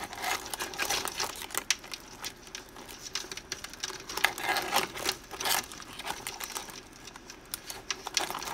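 Blue crabs in a steamer pot, their shells and legs clicking and scraping against each other and the metal in irregular crackling clusters.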